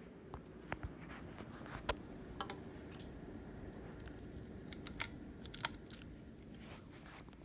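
A dozen or so sharp, irregular clicks and ticks over a steady low hum, the loudest about two seconds in and again about five seconds in.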